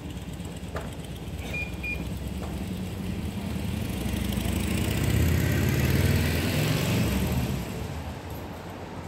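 A motor vehicle driving past on the street: its engine and tyre noise build up, peak about five to seven seconds in, then fall away over steady city traffic noise.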